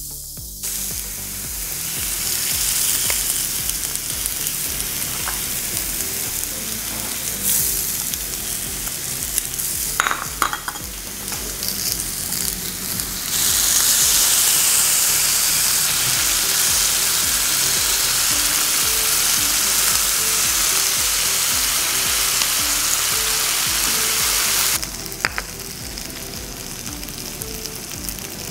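Beef shank and marrow bones sizzling on a hot cast-iron sizzling plate, a steady hiss that steps up louder about halfway through and falls back near the end. A few sharp clicks sound in the first half.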